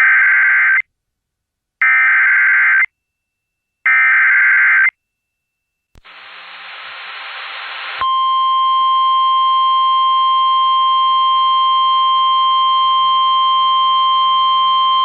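Emergency Alert System SAME header: three one-second bursts of warbling data tones about a second apart. A hiss of radio static swells for about two seconds, then a steady, slightly distorted single tone near 1 kHz starts, typical of the NOAA Weather Radio 1050 Hz warning alarm that comes before a weather warning.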